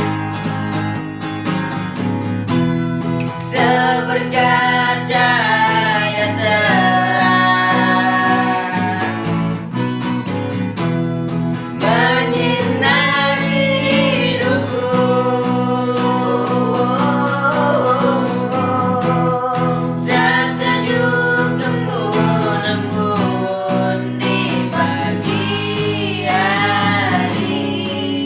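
A voice singing a slow song over guitar accompaniment, in phrases with short breaks between them.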